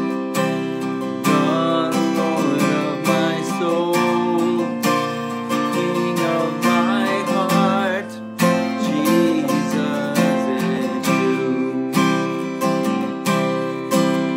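Acoustic guitar strummed in a steady rhythm, with a man singing along through the middle.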